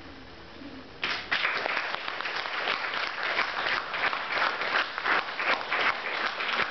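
The last note of a classical guitar fades out, then about a second in an audience breaks into applause and keeps clapping steadily.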